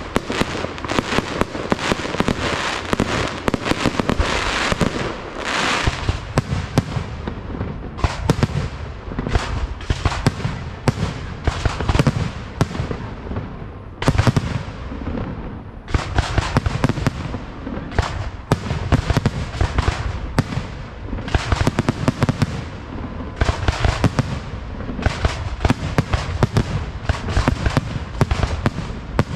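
Fireworks display: aerial shells launching and bursting in a rapid, unbroken run of bangs, with stretches of crackling in the first few seconds.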